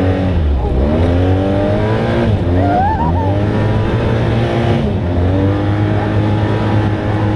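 Arctic Cat Wildcat Trail side-by-side's engine running under the driver, revving up and easing off several times as it is driven, its pitch rising and falling. A brief high squeal rises and falls about two and a half seconds in.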